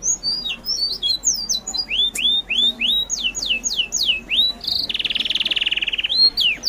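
Bird song: a rapid run of short high chirps sweeping downward, then a string of rising whistles about two seconds in, and a fast rattling trill about five seconds in.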